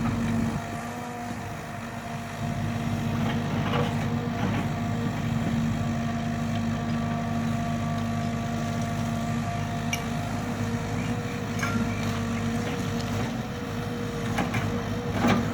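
Caterpillar 307E mini excavator's diesel engine running steadily under test operation, with a few short metallic clanks near the end.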